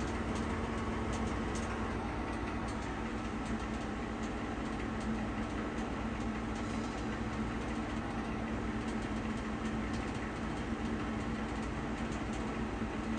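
Pinacho SP/250 lathe running with the carriage traversing the bed under power longitudinal feed, the feed direction just reversed: a steady machine hum with a few faint ticks.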